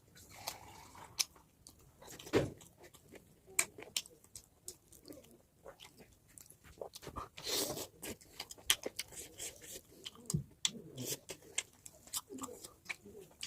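A person chewing pork close to the microphone: irregular mouth clicks and smacks that come and go throughout.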